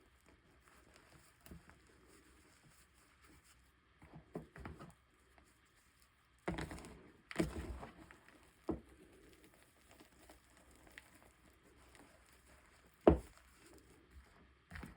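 Chalk being snapped and crushed by hand: scattered soft crackles, a denser crumbling stretch about halfway through, and one sharp, loud snap near the end.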